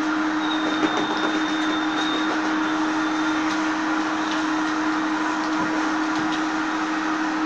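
Vacuum cleaner running steadily: a constant motor hum over rushing air, with a thin high whine during the first few seconds.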